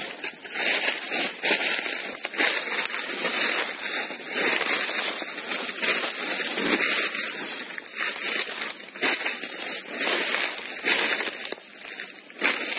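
Footsteps crunching through dry leaf litter and undergrowth: an irregular run of crackling crunches as someone walks through the brush.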